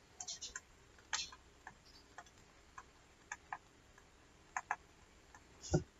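Stylus tip tapping and clicking on a tablet screen during handwriting: light, irregular clicks, with one duller thump near the end.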